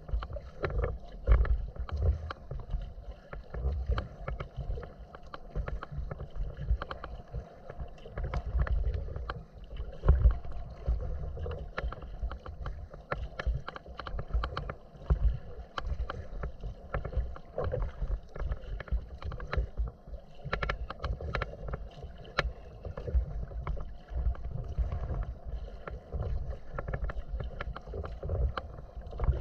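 Choppy water slapping and splashing irregularly against the hull of an inflatable kayak under way, with wind rumbling on the microphone.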